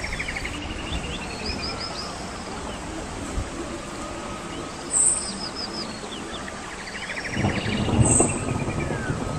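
Birds singing in the surrounding trees: the same phrase of quick trilled and chirped notes repeats about every three seconds. A louder low noise comes in near the end.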